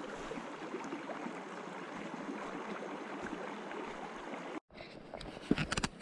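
Stream water running over rocks, a steady rushing and gurgling. It cuts off abruptly about four and a half seconds in, and a few sharp clicks follow near the end.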